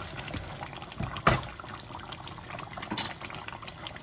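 Meat and potato curry simmering in a casserole pot, bubbling and popping steadily. A sharp knock comes about a second in, and a fainter one near the end.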